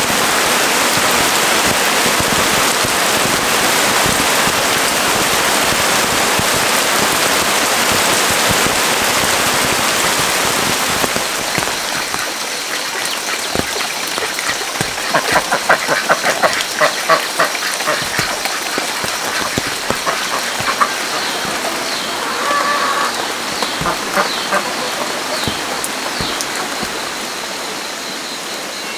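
Heavy rain falling steadily. After about twelve seconds the rain eases, and a run of quick, repeated animal calls comes through over a faint steady high tone.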